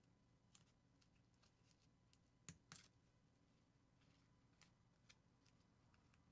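Near silence, broken by a few faint crackles and ticks of masking tape being handled and pressed onto a tape-covered head form, the clearest two close together about two and a half seconds in.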